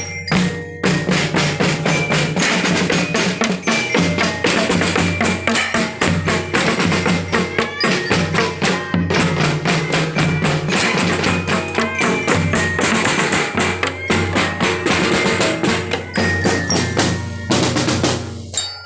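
A school marching drum band playing: rapid snare and bass drum strokes with high ringing mallet tones over them, stopping abruptly near the end.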